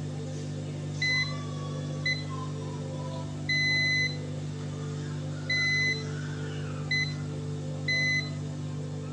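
Multimeter continuity buzzer beeping six times at uneven lengths, from brief chirps to half-second tones, as the probes are touched across an IC's pins to check it for a short; each beep signals continuity between the probed points.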